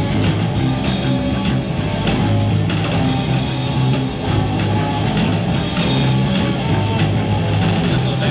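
Live rock band playing: electric guitars and a drum kit through stage amplifiers, loud and unbroken.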